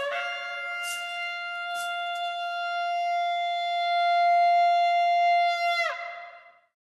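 Music ending on one long held note that dips slightly in pitch and fades out about six seconds in.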